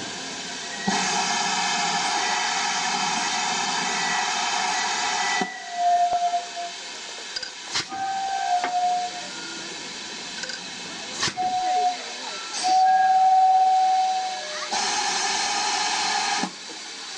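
Steam locomotive letting off steam: a loud steady hiss lasting about four and a half seconds, then several short, steady, high tones and a few sharp clicks, and a second hiss of about two seconds near the end.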